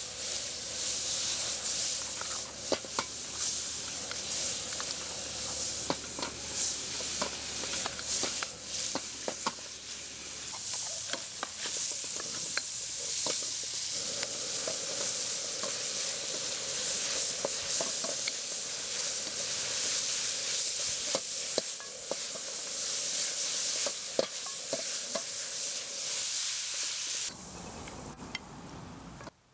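Octopus and basil sizzling in a hot wok, stirred with a wooden spatula that scrapes and clicks against the pan. The sizzling cuts off suddenly near the end.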